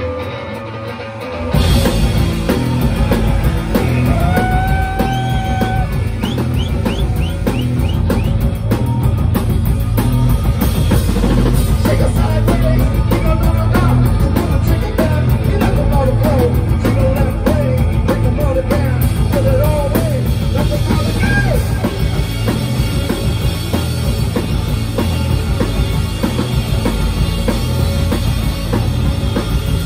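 Live rock band playing: drum kit, electric guitar and bass, loud and dense with a steady beat. The full band crashes in suddenly about a second and a half in, after a quieter opening.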